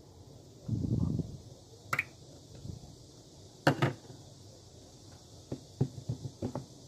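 Slime being squished and poked by hand: a soft squish about a second in, two sharp pops, then a run of small sticky clicks near the end.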